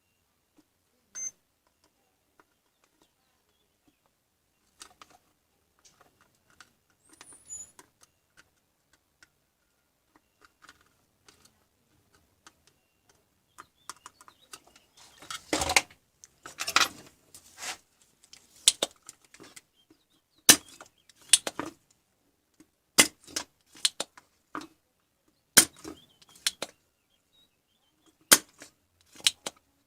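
Irregular sharp clicks and knocks, sparse and faint at first, then louder and more frequent from about halfway through.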